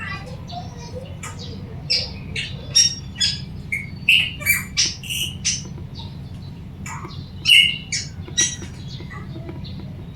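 Puling bird calling in a quick run of short, sharp, high calls, the loudest about seven and a half seconds in, over a steady low hum.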